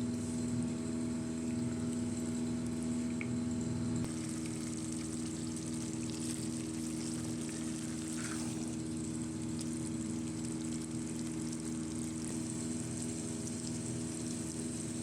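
Steady machine hum with a light hiss, its tone shifting slightly about four seconds in.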